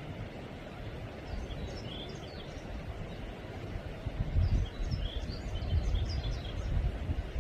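Small birds chirping in short bouts of quick high notes, twice. Underneath is a steady low rumble that swells in gusts about halfway through and is the loudest sound.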